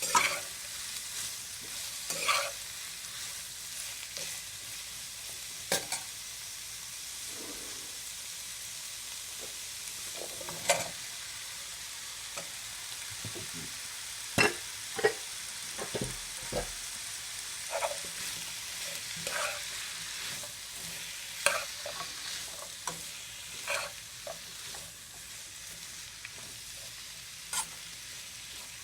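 Chopped vegetables sizzling as they sauté in a wok, with a steady hiss of frying. A utensil stirring them knocks and scrapes against the pan at irregular moments.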